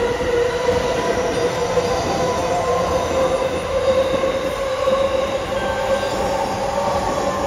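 E531 series electric commuter train running past on the adjacent track: a steady whine with fainter higher overtones over the rumble of its wheels. A second train comes in on the other track near the end.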